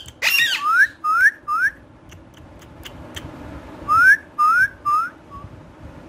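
Alexandrine parakeets giving short whistled calls: a harsher call at the start, then three quick notes that each sweep upward and curl over, and a second run of three about four seconds in. A few faint clicks fall between the runs.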